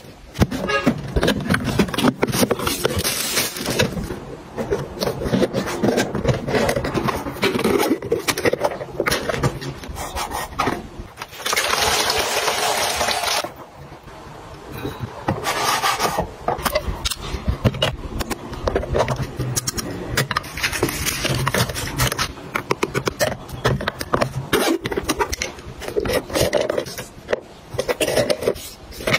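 Close-up handling sounds of packing: fabric and plastic rustling, scraping and light knocks as items are moved and set in place, with a steady hiss for about two seconds near the middle.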